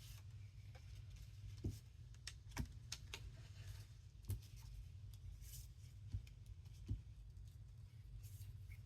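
Light, scattered taps and rustles of paper and cardstock being handled and lined up on a table, a dozen or so small knocks spread irregularly, over a faint steady low hum.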